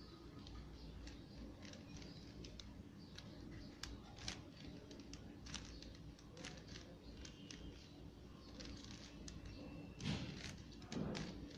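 Plastic 3x3 Rubik's cube being turned by hand: scattered faint clicks of the layers, with louder knocks and rustling about ten seconds in and again a second later.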